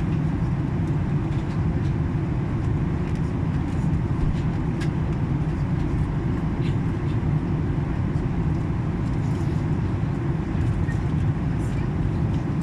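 Steady low drone of an airliner's engines and airflow heard inside the passenger cabin during the descent before landing, with a few faint clicks.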